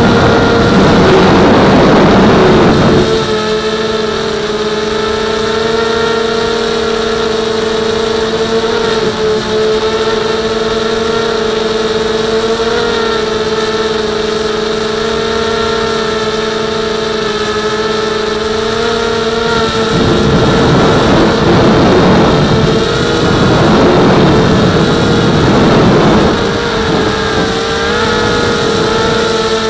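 Blade 200QX quadcopter's four brushless motors and propellers whining at a steady, even pitch, heard close up from the camera mounted on the craft. Rushing air noise swells over the whine for the first few seconds and again for several seconds in the last third.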